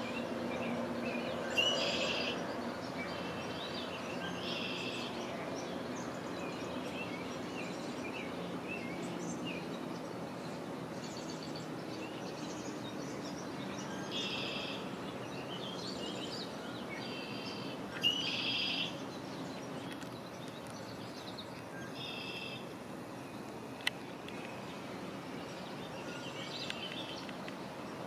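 Birds calling in short phrases of about a second, repeated every few seconds, over a steady outdoor background noise. One sharp click about two-thirds of the way through.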